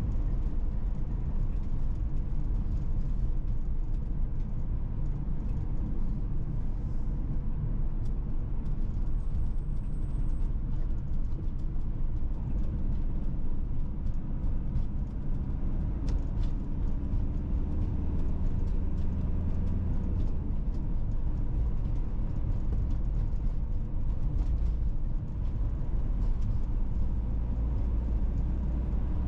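Steady low rumble of a car driving along a road: tyre and engine noise with no break.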